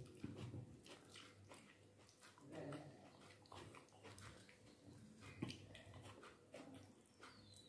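Faint eating sounds: chewing and wet mouth smacks with scattered small clicks, along with fingers mixing soft rice into potato and pumpkin curry on a plate.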